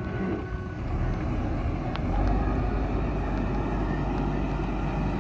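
JCB backhoe loader's diesel engine running steadily, growing louder about two seconds in, with a single short click just before the rise.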